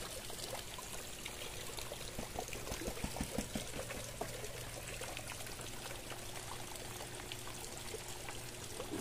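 Water pouring and trickling steadily.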